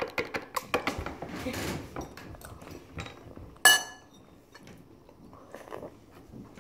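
Small hard objects clattering as they are handled: quick clicks and taps, then one sharp, ringing clink about three and a half seconds in.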